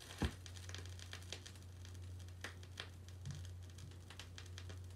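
Stylus riding the lead-in groove of a 7-inch 45 rpm vinyl single on a Pioneer turntable: faint surface noise with scattered crackles and pops over a steady low hum, with one louder pop near the start.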